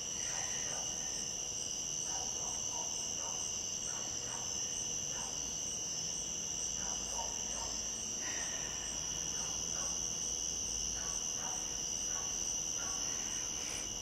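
Night chorus of crickets and other insects, a steady high-pitched trilling at two pitches.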